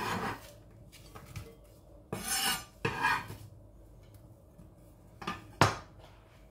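Sliced red onion swept off a wooden chopping board into a glass bowl: short scraping rustles at the start and about two and three seconds in. Near the end a kitchen knife is set down on the board with two knocks, the second the loudest.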